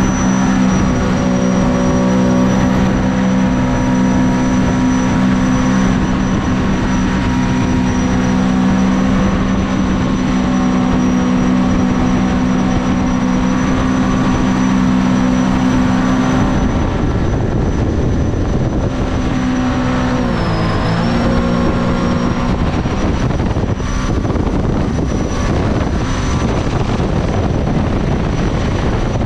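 Mini jet boat's supercharged engine running hard at a steady high speed, with a thin high whine over it and a constant rush of wind and water. About two-thirds of the way through, the revs and the whine drop briefly and come back up.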